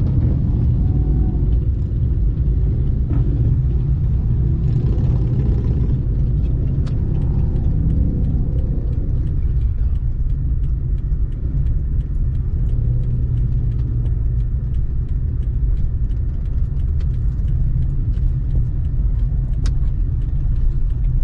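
Steady low rumble of a slow-moving pack of motorcycles, many of them Harley-Davidsons, heard from inside a car.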